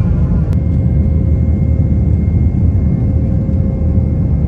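Airliner jet engines heard inside the passenger cabin during takeoff: a loud, steady low rumble with a thin steady whine on top. There is a single faint click about half a second in.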